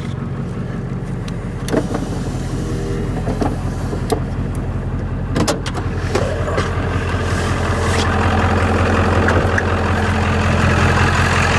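Ford 7.3 L Powerstroke V8 turbo-diesel idling steadily just after a cold start. It grows louder about six to eight seconds in, with a few sharp clicks and knocks along the way.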